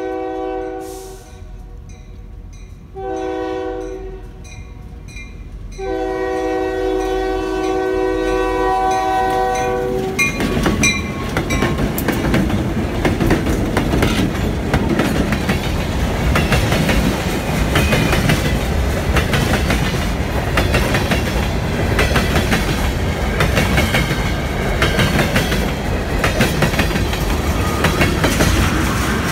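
Diesel freight locomotive sounding its multi-note air horn in three blasts as it approaches a grade crossing, the last about four seconds long. From about ten seconds in, the locomotive and a string of tank cars roll past close by with a steady rumble and a clickety-clack of wheels over the rail joints.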